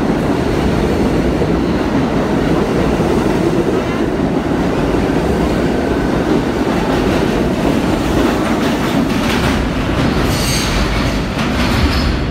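New York City subway train pulling out along the platform, with a steady heavy rumble and wheels clattering over the rail joints. A high-pitched wheel squeal sounds near the end as the last cars leave.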